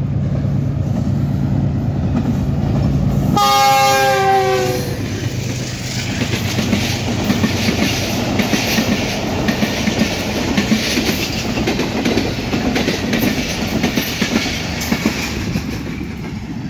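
A Pakistan Railways passenger train on a steel girder bridge: the diesel locomotive's engine drones steadily as it approaches, its horn sounds once a few seconds in, about a second and a half long and falling slightly in pitch, then the coaches' wheels clatter over the rail joints as they pass.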